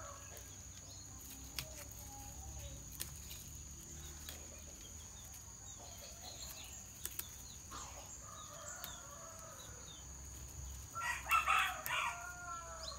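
A rooster crows once about eleven seconds in, the loudest sound, over a low steady rumble and a few faint clicks.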